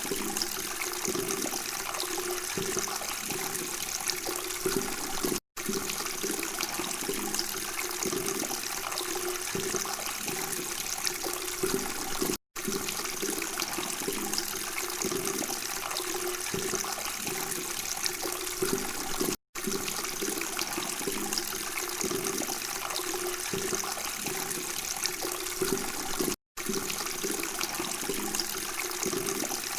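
Running water murmuring and trickling steadily, with a bubbling gurgle. The sound cuts out for an instant about every seven seconds, the seam of a looped recording.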